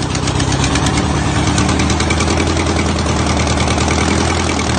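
Detroit Diesel two-stroke V engine running steadily on a stand, with a loud, even, rapid beat of firing pulses.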